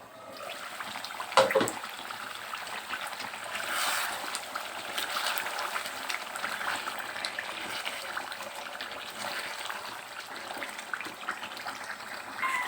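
Water running from a kitchen tap, trickling and splashing steadily, with one sharp knock about a second and a half in.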